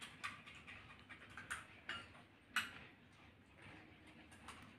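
Faint scattered crisp clicks and crackles of hollow pani puri shells being cracked open by hand, with spoons tapping and scraping in small bowls of filling.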